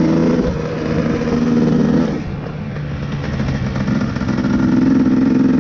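Dirt bike engine running, easing off about two seconds in and building back up toward the end.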